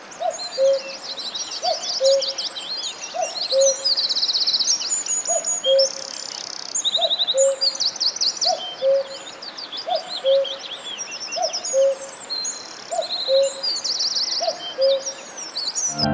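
Several songbirds chirping and trilling rapidly and continuously. Under them, a low, soft two-note call repeats steadily about once every second or so.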